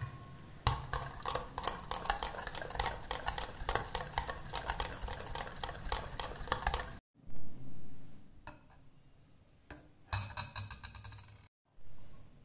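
A wire whisk beating a thin liquid batter in a glass bowl, its wires clicking and clinking rapidly against the glass for several seconds. After a cut come a few separate knocks and another short burst of clinking.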